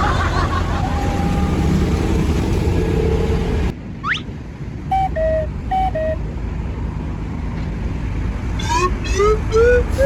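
Street and vehicle noise that cuts off abruptly, then a rising whistle-like glide, two short falling two-note horn toots, and near the end a run of short rising notes climbing higher each time, typical of a musical bus horn.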